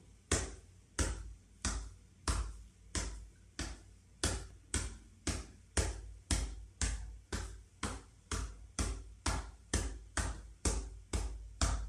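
Self-massage patting: a loosely clenched hollow fist striking the chest just below the collarbone (the Yunmen point on the lung meridian) with light, dull thuds in a steady rhythm of about one and a half a second.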